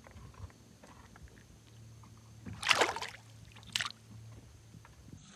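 Water splashing as a hand releases a small bass into the lake: one loud splash about two and a half seconds in, then a shorter one about a second later.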